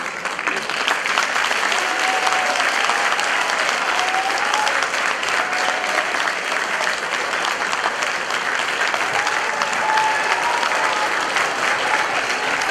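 Audience applauding, dense and steady clapping.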